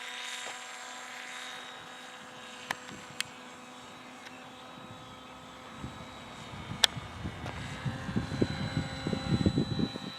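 Radio-controlled model airplane's motor and propeller running at part throttle, a steady whine from the plane in flight just after a low pass. Wind gusts buffet the microphone over the last few seconds, and there are a few sharp clicks.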